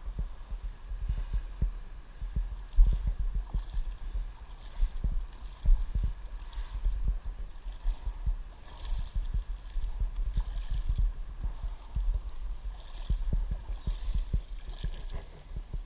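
Irregular muffled low thumps and rumble on the microphone, with faint splashing water, as someone moves about in a river to rinse off.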